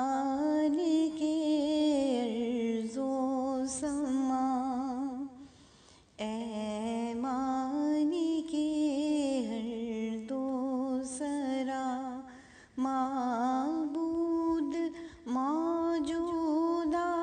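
A single voice singing a slow wordless melody with no accompaniment, long held notes with vibrato in phrases separated by short breaks: the sung opening of an Urdu hamd, a devotional song in praise of God.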